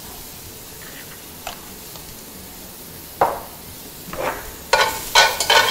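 Sautéed mushrooms sizzling faintly in a wok just after the heat is turned off, with a light knock about three seconds in; near the end a utensil starts stirring and scraping the mushrooms around the wok in quick strokes.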